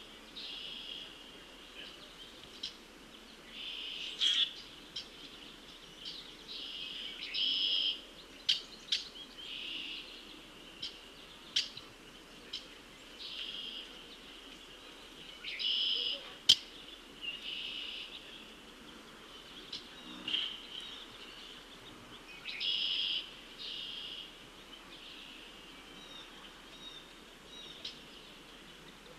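Red-winged blackbird song: short buzzy phrases repeated every few seconds, with sharp single call notes in between, the loudest about halfway through.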